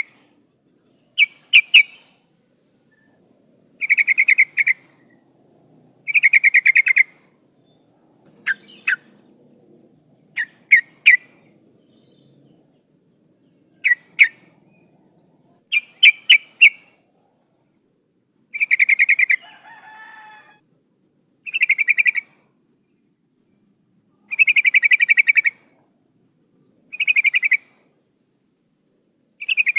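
Yellow-vented bulbul (trucukan) calling: short, fast chattering bursts repeated every two to three seconds, some broken into two or three sharp separate notes. This is a female's call of the kind used as a lure to bring a male in.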